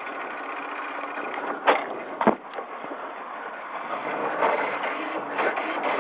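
Cabin sound of a Toyota Starlet KP62 rally car with a 4A-GE engine running at low speed as it rolls over gravel, with two sharp knocks about half a second apart just under two seconds in.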